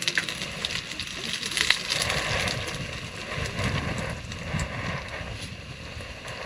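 Fried rice frying in a pan, a steady sizzle with scattered clicks and scrapes of stirring, swelling louder around the middle.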